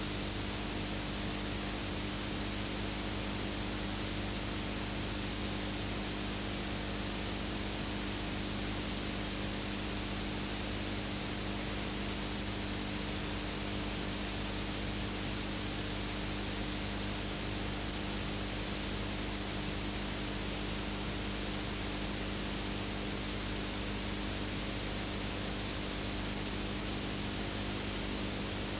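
Steady, unchanging hiss with a constant low hum beneath it and nothing else: the noise floor of a silent film's video transfer, not sound from the trains.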